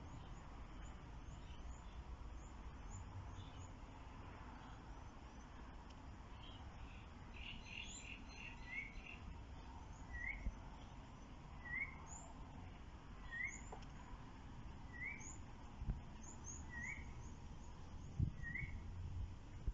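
Birds calling: faint high chirps throughout, and from about halfway in one bird repeats a short rising chirp about every second and a half. A few soft low thumps near the end.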